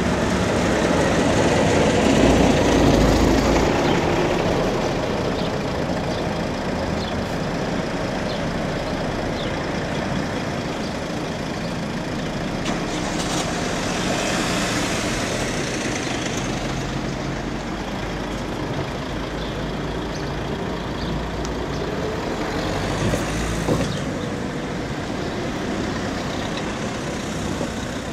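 Diesel engine of a coach pulling past close by, loudest in the first few seconds. A minibus and then a car drive past over steady engine and traffic noise. A brief sharp noise comes near the end.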